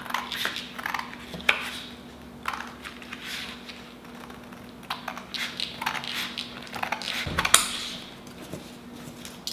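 Scissors cutting through thick drawing paper, trimming off the torn spiral-bound edge: a run of short, crisp snips at an uneven pace, with one louder stroke about three quarters of the way through.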